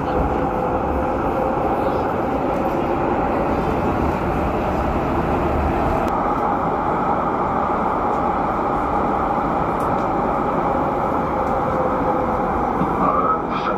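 Docklands Light Railway train running through a tunnel, heard from inside the carriage: a steady rumble of wheels on rail with a constant hum.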